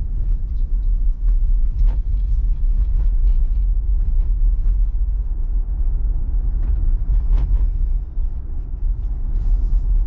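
Low, steady rumble of a Tesla Model Y driving along: road and tyre noise of an electric car, with no engine note.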